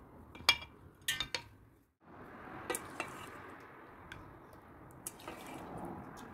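Metal fork clinking and scraping on a ceramic dinner plate as food is picked up, with a few sharp clinks about half a second in, a quick cluster around one second, and more near three and five seconds.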